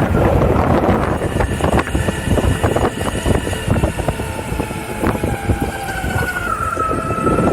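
Ownboard Carbon AT electric skateboard being ridden on its 6-inch all-terrain tyres: tyres rumbling over rough ground with scattered knocks, wind on the microphone, and a thin motor whine that dips in pitch about six and a half seconds in and then holds steady.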